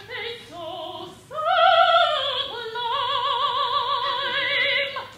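A woman singing opera in full operatic voice: a few short phrases, then one long held note with a wide vibrato that ends about five seconds in.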